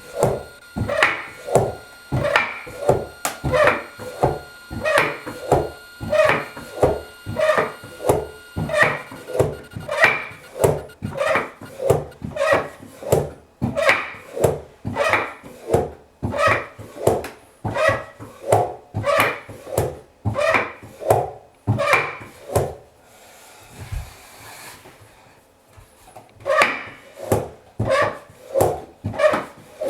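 Handmade wooden walking horse toy clacking along, its wooden legs knocking in a steady rhythm of about three knocks every two seconds. The knocking stops for a few seconds about three quarters of the way through, then starts again.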